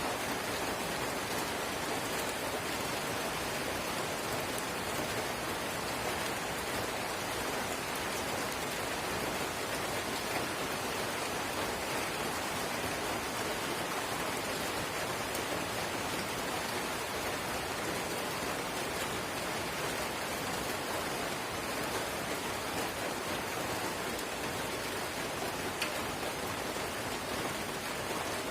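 Light rain (drizzle) falling steadily, a continuous even hiss with a few faint drop ticks.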